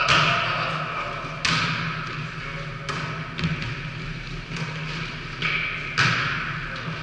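A volleyball being struck by players' hands and arms: four sharp slaps a second or more apart, each echoing in a large hall.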